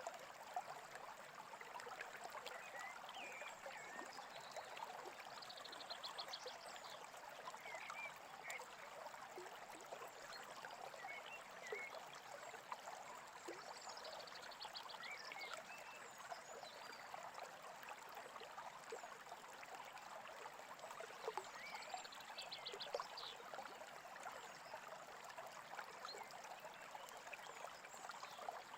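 Softly babbling stream with birds chirping, and a buzzy trill that recurs about every eight seconds.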